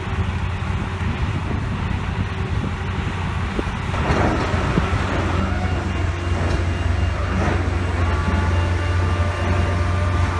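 Soilmec SR-75 rotary piling rig running: a steady low engine drone under constant machinery noise. About four seconds in there is a louder burst of noise, and during the second half a whine of several steady high tones rises over the drone.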